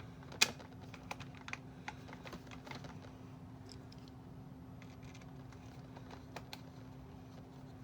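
Scattered light clicks and taps of AAA batteries and the plastic battery compartment of a toy being handled, with one sharper click about half a second in, over a faint steady hum.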